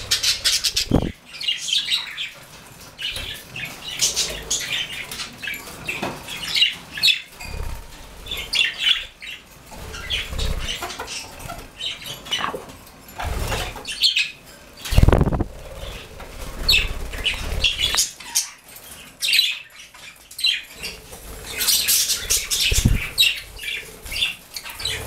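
Budgerigars chirping and chattering in many quick, short calls, with bursts of wing flapping now and then.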